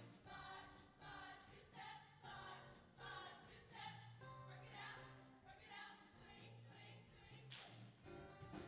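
Women's show choir singing a quiet passage with instrumental accompaniment, a steady bass line underneath the voices.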